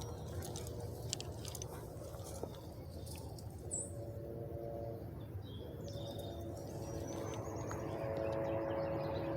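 Outdoor spring ambience: a few short, high bird chirps over a steady low rumble. About four seconds in, a droning hum of several steady tones comes in and grows louder near the end.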